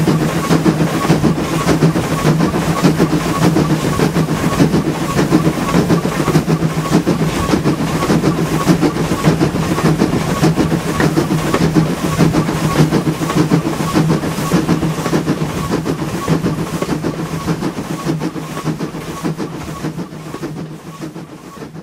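LB&SCR E4 class 0-6-2 tank locomotive working its train, its exhaust beats coming fast and even, with the coach wheels clattering along the rails; heard from an open front window of the leading coach. The sound fades out near the end.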